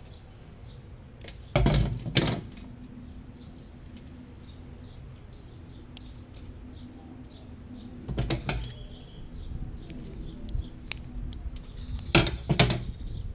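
Small clicks and knocks from handling scissors and a zip-tied bungee cord, in three short clusters: about two seconds in, about eight seconds in, and near the end.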